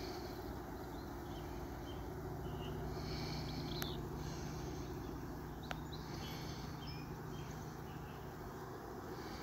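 Honeybees buzzing around their hives: a steady low hum of many wings, with a few faint high chirps now and then.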